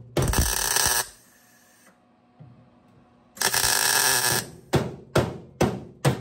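Two short bursts of MIG welding, each about a second long, tacking a steel patch panel in, with a quiet gap between. Then about four sharp hammer taps on the sheet metal, roughly two a second.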